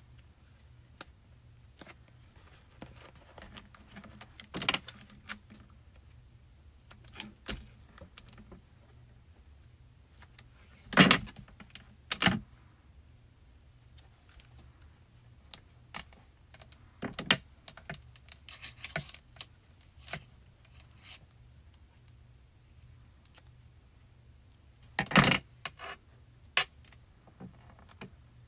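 Small crinkles, clicks and taps of double-sided foam tape and paper being handled and peeled by hand, with a few louder sharp snaps spread through.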